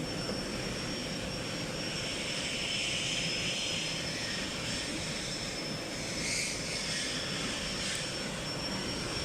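Steady machine running with an even drone and a thin high-pitched whine throughout, swelling into a brief hiss twice.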